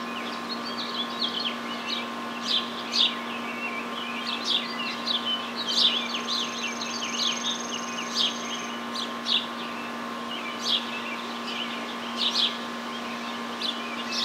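Several songbirds chirping and singing in quick, overlapping calls, with a thin, steady high trill from about six seconds in that lasts a couple of seconds. A faint steady hum runs underneath.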